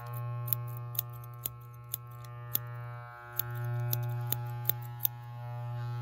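Electric hair clippers buzzing steadily, fading briefly about three seconds in, while scissors snip through hair about twice a second until near the end.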